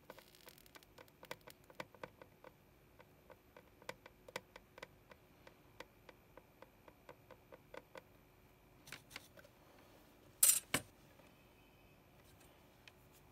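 Soldering iron tip worked along the pins of a TSSOP chip on a circuit board, making faint, irregular small ticks and clicks, a few a second. A louder short double clatter comes about ten and a half seconds in.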